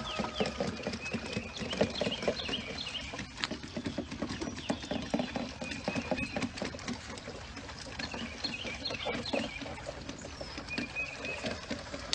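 A row of goat kids sucking at a rack of bottle nipples: a dense, steady patter of small wet smacks and slurps.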